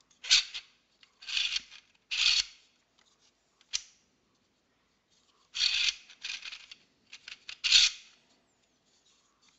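Plastic puzzle box halves sliding and turning against the core as the box is opened and closed: a series of short scraping rasps with a sharp click or two, and a pause about halfway through.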